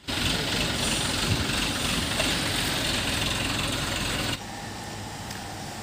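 Diesel engine of an ACE Rhino 110C pick-and-carry crane running steadily while it holds a load on its hook. The sound drops abruptly to a quieter level a little over four seconds in.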